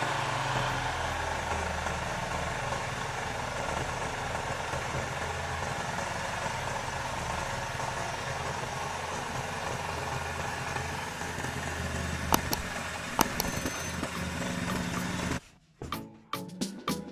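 Restored Honda GX160 single-cylinder four-stroke engine running steadily at idle, with two sharp clicks near the end. It cuts off suddenly about fifteen seconds in and music with a beat takes over.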